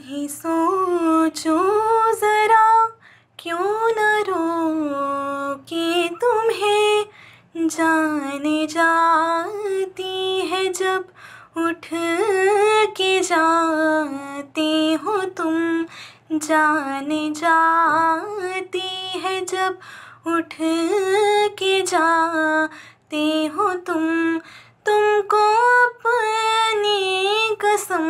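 A young woman singing a slow melody solo, in long held, wavering phrases broken by short pauses for breath.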